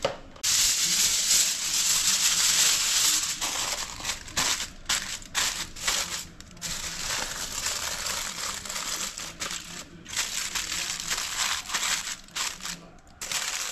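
Crinkling, rustling handling noise: one loud stretch for the first few seconds, then irregular stop-start bursts.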